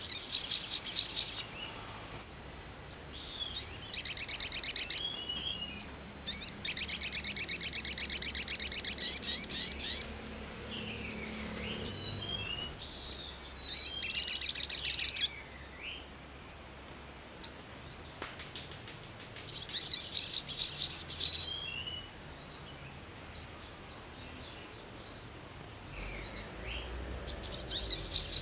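Male olive-backed sunbird (sogon) singing: repeated bursts of fast, high trills, one drawn out for about three seconds, with soft short chirps between the bursts.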